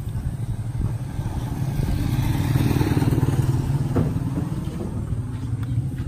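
A motor vehicle engine running with a steady rapid beat, swelling louder between about two and four seconds in, with a single knock about four seconds in.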